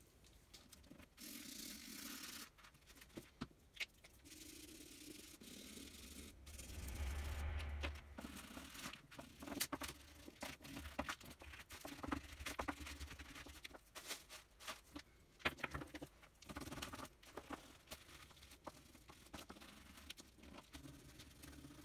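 Pastel crayons scribbling on paper: a run of quick, irregular scratchy strokes, with a low bump on the table about seven seconds in.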